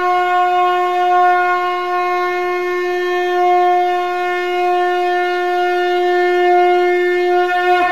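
A single long note from a blown wind instrument, held steady and rich in overtones, with a brief dip in pitch near the end.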